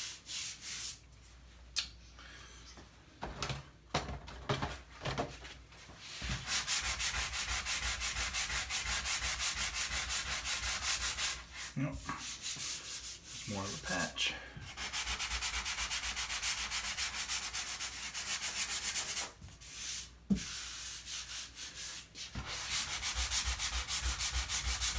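Sanding sponge scrubbed quickly back and forth over dried spackle on a drywall patch, smoothing it before paint. Scattered light rubbing comes first, then long runs of fast, even strokes with a few short pauses.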